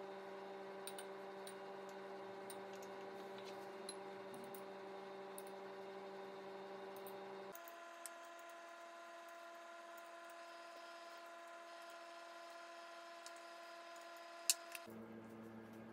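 A steady drone of held pitched tones that jumps abruptly to a new pitch about halfway through and again near the end. Over it come faint, scattered clicks of chopsticks against ceramic bowls, with one sharper click near the end.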